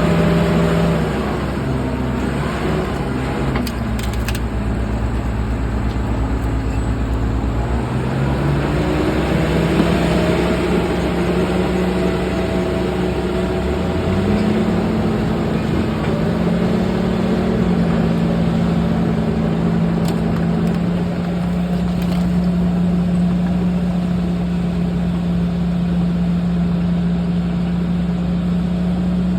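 Bulldozer's diesel engine running under changing throttle: its pitch drops early on, climbs again about a third of the way in, then holds steady through the last third.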